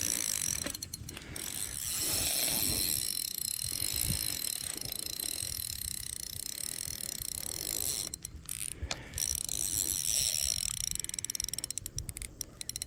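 Fishing reel ratcheting and clicking as a large carp pulls line against the drag during the fight.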